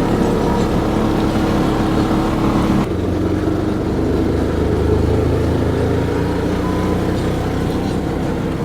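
Auto-rickshaw (tuk-tuk) engine running while riding in it, with a steady drone whose note drops about three seconds in.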